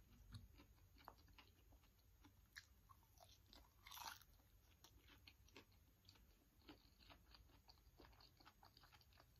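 Faint wet mouth sounds of eating soft, ripe durian flesh: a bite about four seconds in, the loudest sound, then slow chewing with small lip smacks and clicks.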